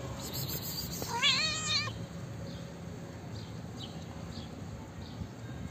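Calico cat giving a single meow about a second in, its pitch wavering, over a steady low background hum.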